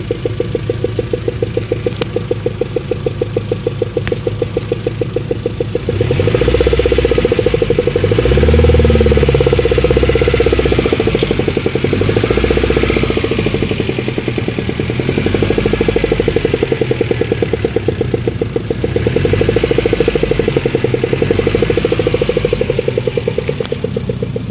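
Daewoo Nexia 1.6 petrol engine running with a fast, regular knock, growing louder for two long stretches as it is revved. Mechanics could not place the knock; they ruled out the hydraulic lifters and the crankshaft.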